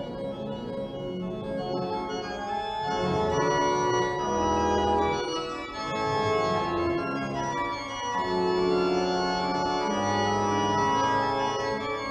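Organ music: an organ plays sustained chords, with deep pedal bass notes coming in several times.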